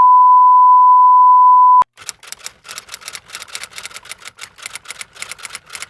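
A loud, steady, high pure electronic beep held at one pitch that cuts off abruptly about two seconds in, followed by a fast, uneven run of light sharp clicks, several a second, like typing.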